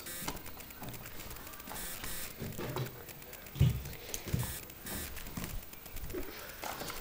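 Camera handling noise: faint rustling with a few soft knocks as a handheld camera is moved about, the strongest knock about halfway through.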